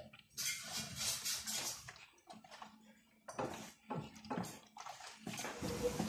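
Water sloshing and splashing in the drum of a toy Miele W1 washing machine as it tumbles socks during a rinse. The sloshing comes in uneven swishes, with a quieter lull about two to three seconds in.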